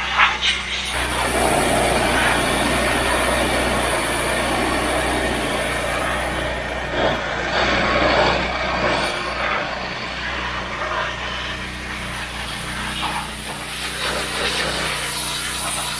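Pressure washer running, its high-pressure spray hissing against a garden tractor's steel frame over a steady low motor hum. The spray grows louder about a second in.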